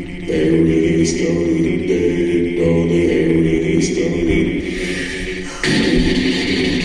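Layered a cappella singing: voices holding steady, chant-like tones that jump louder and brighter about five and a half seconds in.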